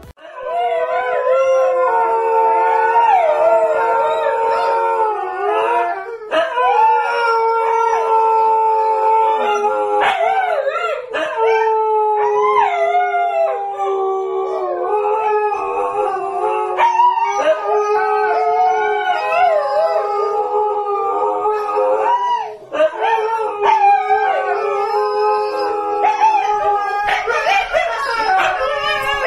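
Siberian huskies howling: long, drawn-out howls that drift slowly down in pitch, with several voices howling at once.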